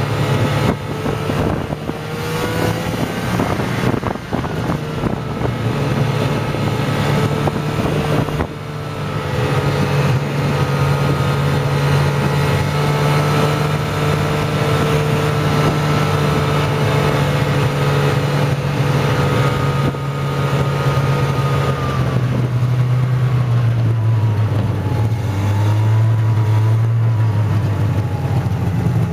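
Snowmobile engine running steadily at trail speed, over a constant rush of wind and track noise. About 22 seconds in the engine note drops and wavers lower as the sled slows down.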